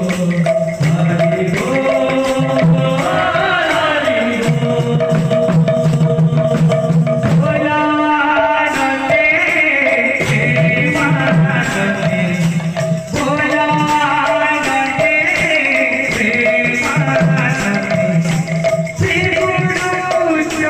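Odia kirtan singing: a male lead voice with a group answering, its melody gliding and wavering, over a steady beat from two-headed barrel drums, all heard through a microphone and loudspeakers.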